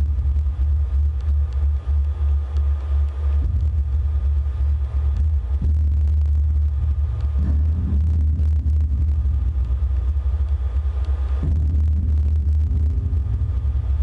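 Amplified metal ceiling wires picked up by piezo contact microphones: a loud, steady low drone, with fainter tones above it that shift now and then and a few soft knocks on the wires.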